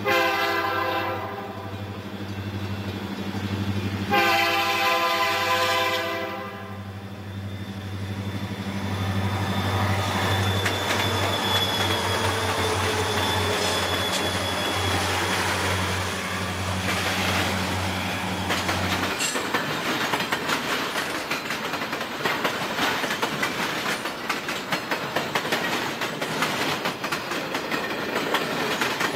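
A Canadian National diesel freight locomotive sounds two horn blasts and rumbles past, its engine dropping away about two-thirds of the way in. Then a string of intermodal cars rolls by with a rapid clickety-clack of wheels over rail joints.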